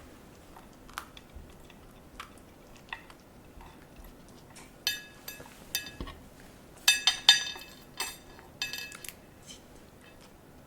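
A poodle crunching and chewing broccoli: a string of sharp crunches and clicks, sparse at first and coming thick and fast from about five to nine seconds in.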